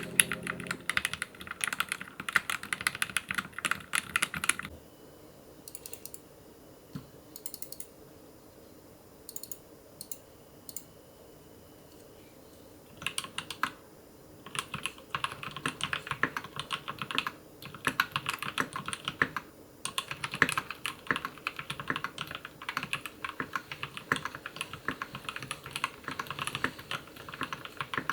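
Typing on a custom mechanical keyboard: quick runs of keystroke clicks, broken about five seconds in by a pause of a few scattered single keypresses, then steady typing again.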